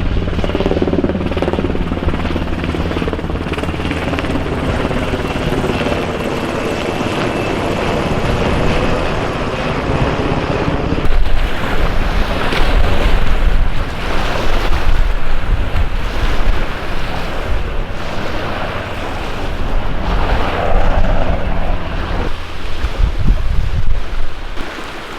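Coast Guard search helicopter flying low, its rotor blades beating steadily for roughly the first eleven seconds. The sound then changes abruptly to wind and water noise.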